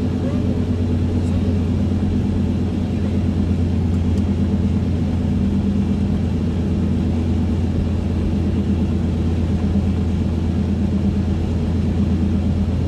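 Steady drone of a car cruising at highway speed, heard inside the cabin: a constant low rumble of engine and tyres with no change in speed or pitch.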